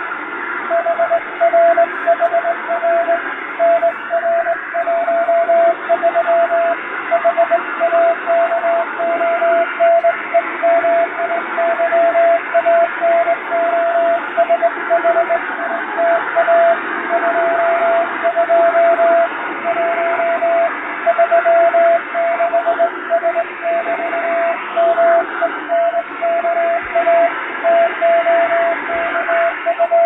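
Morse code keyed by hand on a straight telegraph key, heard as a shortwave radio signal: a single steady beep broken into dots and dashes over continuous static hiss, with added noise and fading. Static alone for about the first second, then the keying starts, sending a practice telegram in international (Latin-letter) Morse.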